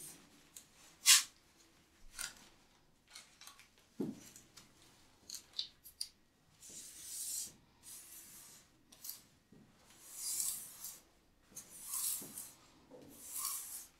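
A cloth rubbing along the bathtub rim against the tiled wall in short, scattered wiping strokes, with a sharp click about a second in and a dull knock about four seconds in.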